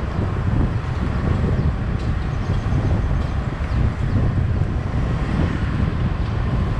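Steady road noise from a vehicle on the move, with wind rumbling over the microphone.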